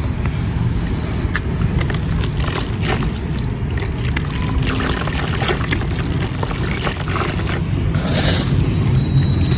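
Wet marble-powder crumbles being crushed into water: a continuous run of gritty crackles and small wet sloshes over a steady low rumble, with a denser gritty burst near the end.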